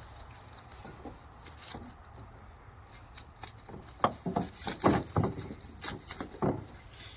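A handful of short knocks and scrapes from sawmill parts and their packaging being handled, bunched together from about four seconds in.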